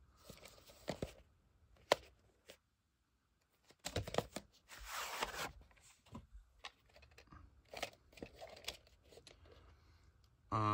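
A VHS cassette being slid out of its cardboard sleeve and handled: papery scraping and rustling, with a sharp click near 2 seconds in and a longer scrape about 4 seconds in.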